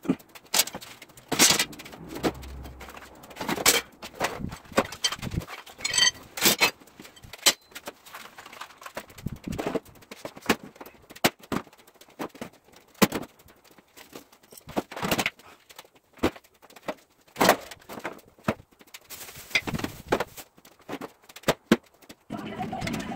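Tools and equipment being shoved around and set down on a concrete floor: irregular knocks, clunks and clatters of metal and plastic objects with short pauses between.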